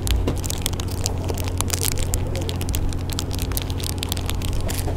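Steady low hum of the fishing boat's engine, with frequent irregular crackles and clicks over it.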